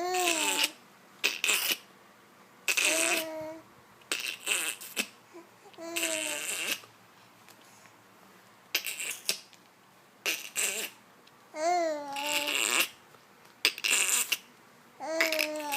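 A man making silly mouth noises, short hissing, sputtering bursts, taking turns with short high babbling cries that fall in pitch. They come in quick separate bursts with short pauses between.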